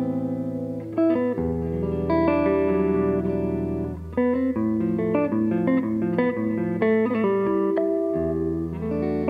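Gibson L-5 archtop electric guitar played solo with a clean tone: chords left ringing, with a busier run of picked single notes in the middle.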